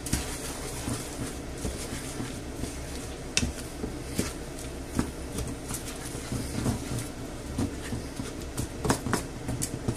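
Wooden spatula stirring rice through tomato sauce in a non-stick frying pan: continuous irregular scraping with light knocks against the pan.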